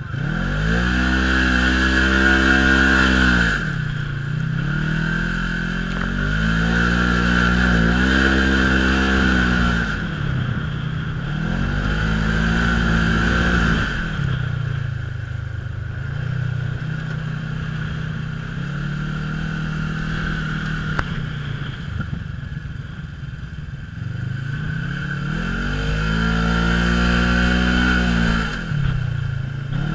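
Sport side-by-side UTV's engine under load in sand, revving up and dropping back about five times as the throttle is worked, with a steady hiss over it.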